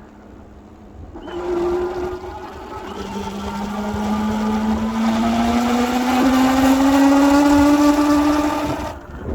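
Ariel Rider Grizzly electric bike's hub motor whining as it runs: a short tone about a second in, then a whine that rises steadily in pitch and grows louder as the motor speeds up, and cuts off suddenly near the end. The owner takes the noise for a bad motor.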